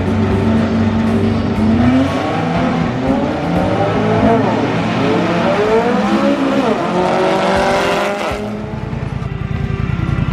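Volkswagen Beetle drag car accelerating down the drag strip, its engine pitch rising and dropping repeatedly through the gear changes. About eight seconds in it cuts off suddenly, and an engine idling with an even, lumpy pulse follows.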